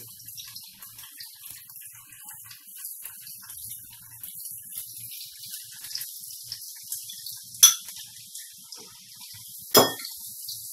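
Vegetables sizzling in oil in a frying pan over high heat, with scattered faint crackles. Two sharp metallic clangs, about two seconds apart, come near the end.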